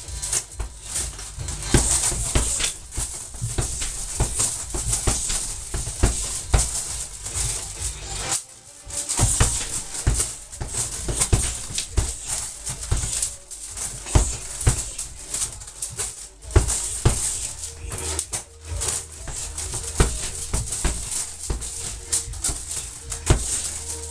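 Boxing gloves punching a hanging heavy bag in quick, irregular flurries of blows, with brief lulls, over background music.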